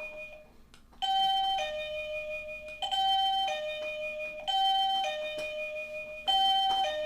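Electronic chime of a Neon plug-in wireless doorbell receiver ringing loudly: a falling two-note ding-dong repeated four times, each about a second and a half to two seconds long, after a brief pause near the start.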